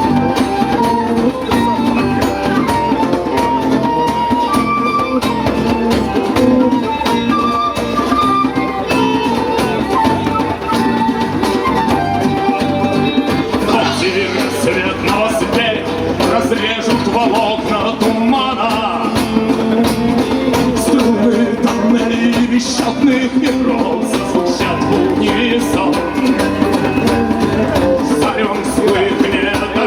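A band playing live music with guitar, a full, steady arrangement with no break.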